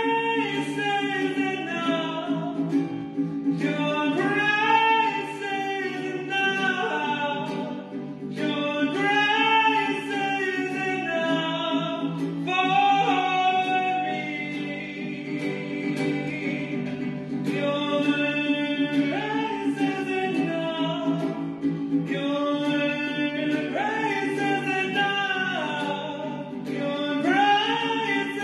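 A hymn sung to guitar accompaniment, the melody moving over steady sustained chords.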